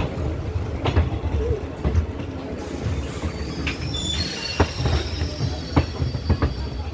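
Train rolling on the rails with a low rumble and irregular clacks over the rail joints. About halfway through, a high metallic squeal of wheels against rail sets in and holds.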